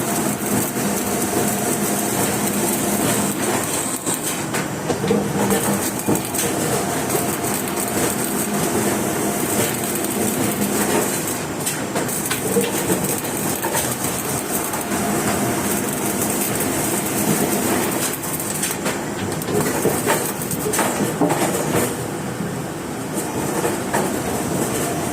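Electric welding arc crackling and hissing steadily, with a dense run of small pops.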